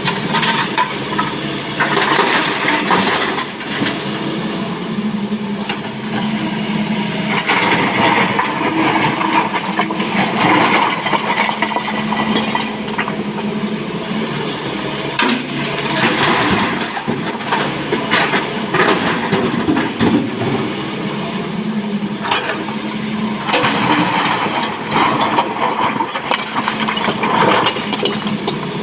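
SANY SY225 hydraulic excavator's diesel engine running steadily under load, while loose stone clatters and crashes in repeated spells as the bucket digs into and tips rock.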